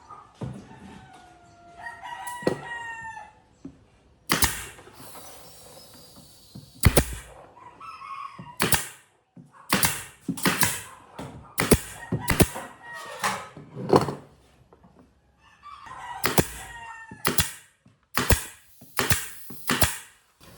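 A rooster crowing, twice, with a long string of sharp, irregular knocks between and after the calls; the knocks are the loudest sounds.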